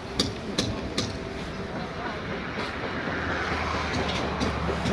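Footsteps knocking on metal scaffold decking, a few sharp clanks at a time. A low steady hum comes in partway through.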